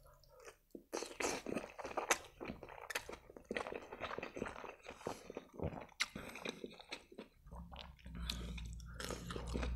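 Close-miked wet chewing of a mouthful of spaghetti in tomato sauce, with irregular mouth smacks and clicks and the strands being sucked in. A low rumble joins in for the last couple of seconds.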